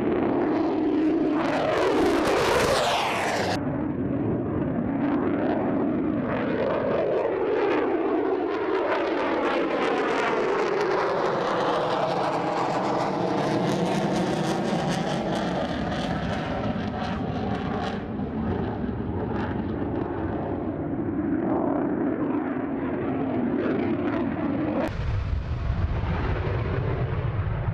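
F-35A Lightning II's single F135 afterburning turbofan, a loud jet roar as the aircraft passes, with a sweeping rise and fall in pitch. The sound changes abruptly twice, about three seconds in and near the end, where a deep low rumble takes over.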